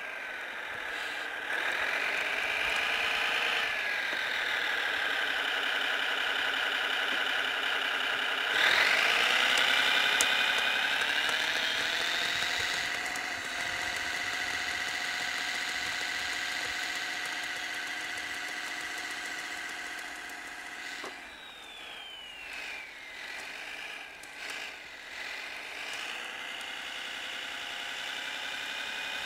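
Simulated diesel engine sound from a Servonaut SMX sound module in a Kyosho Blizzard radio-controlled snowcat. It revs up sharply about eight seconds in, holds high with a rising whine, then drops back with a falling whine a little past the twenty-second mark.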